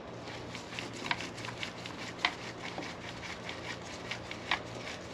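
Scattered light clicks and taps of hand tools and metal parts being handled as the chainsaw's starter housing is fastened down with its screws and nut, over a steady low hum.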